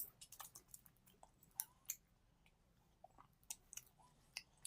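Faint, irregular wet clicks and smacks of a person chewing a mouthful of roti close to the microphone.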